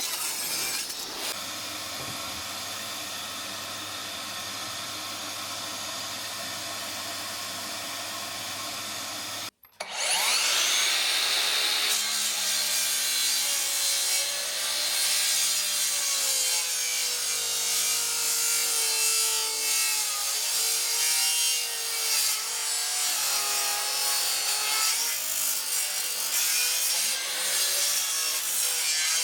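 Power tool working hardwood pallet timber. It runs steadily for about the first ten seconds, then after a brief cut-out a tool spins up with a rising whine and runs on, its pitch wavering as it works the wood.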